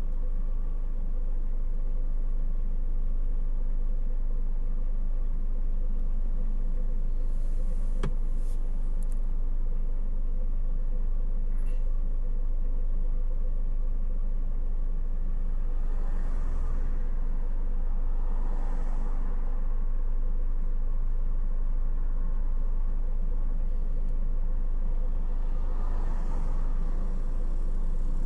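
Steady low road and engine rumble of a car driving, heard from inside the cabin, with a single sharp click about eight seconds in.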